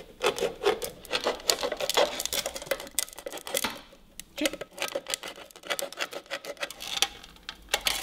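A knife blade cutting around a thin metal tin: a fast, irregular run of scraping clicks as the blade works through the tin-plate, with a brief pause about halfway.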